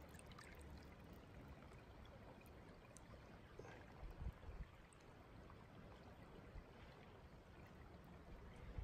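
Near silence: faint running creek water, with a few soft water sounds about four seconds in from a rainbow trout being held in the current for release.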